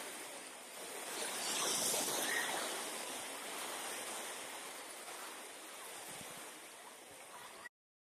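Sea surf on a sandy beach: a wave breaks and swells to its loudest about two seconds in, then washes back and eases off. The sound cuts off abruptly just before the end.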